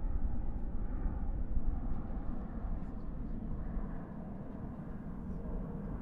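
Distant highway traffic: a steady low rumble of vehicles and tyres, swelling slightly about a second and a half in as traffic passes closer, then easing.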